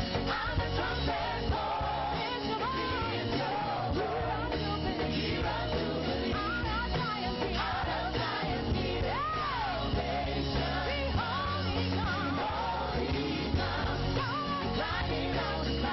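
Live praise-and-worship music: a band playing steadily with a steady bass line, and singing voices over it.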